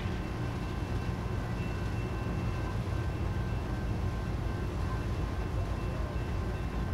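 Distant diesel freight locomotive approaching, a steady low rumble, with a few faint steady high whines over it.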